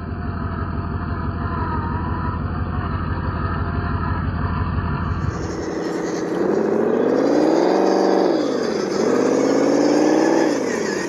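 Simulated engine sound played through the speaker of an RC scale crawler's ESP32 sound controller. It idles steadily for about five seconds, then, after a cut, revs up and back down twice with the throttle.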